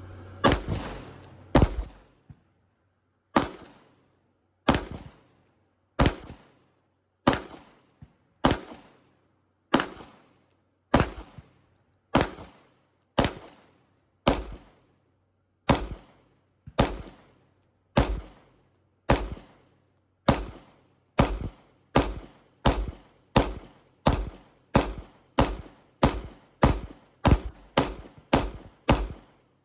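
A 9mm handgun firing about thirty single shots. They start at a steady pace of about one a second and speed up to roughly two a second over the last several seconds.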